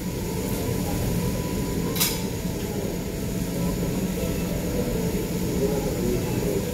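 Steady low rumble, with one sharp clink about two seconds in.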